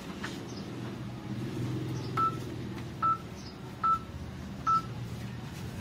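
Four short electronic beeps of the same pitch, a little under a second apart, from a smartphone flash-number arithmetic app sounding as each number comes up on screen. A faint low hum runs beneath them.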